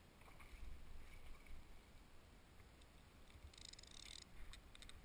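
Near silence: a low, fluctuating wind rumble on the helmet camera's microphone, with a brief burst of fast ticking about three and a half seconds in and a few single clicks near the end.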